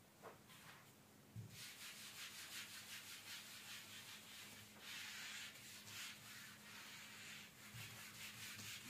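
Whiteboard eraser being rubbed back and forth across a whiteboard: a quick, steady run of soft swishing strokes that starts about a second and a half in.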